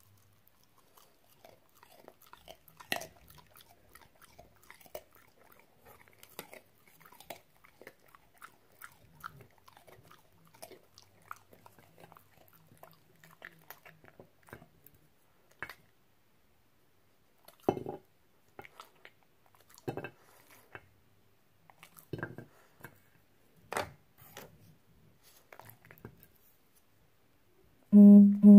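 French bulldog chewing raw carrot pieces: soft wet chewing with sharp crunches every second or two. Near the end comes a brief, loud, low pitched tone, twice in quick succession.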